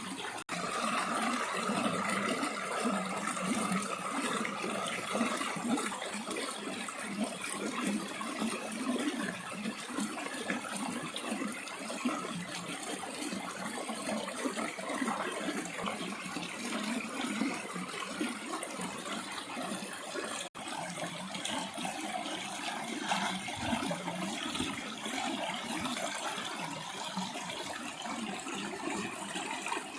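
Steady rushing, splashing sound of water, broken off for an instant twice.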